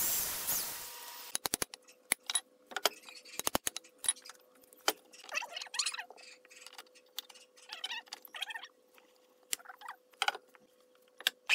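An electric hand drill boring into the end grain of a wooden block, stopping about a second in. It is followed by scattered sharp metallic clinks, knocks and short scrapes as a wooden post blank is handled and fitted onto a lathe.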